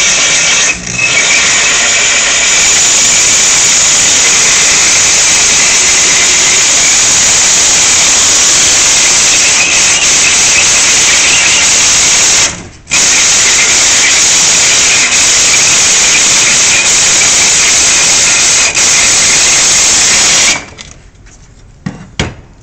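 Corded drill spinning a diamond hole saw as it grinds into porcelain tile with a loud, high-pitched grinding. The drill stops briefly about a second in and again around the middle. It shuts off a couple of seconds before the end, and a couple of light knocks follow.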